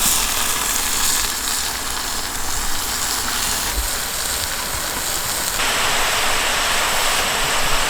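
Onions and chopped banana flower frying in hot sesame oil, a steady sizzle that grows a little louder about two-thirds of the way through.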